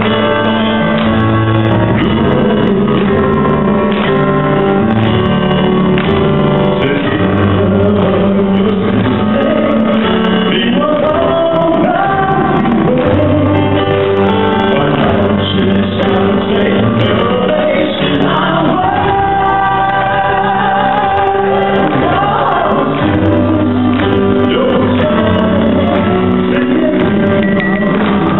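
A man singing live into a microphone over accompanying music, amplified through the PA of a large hall.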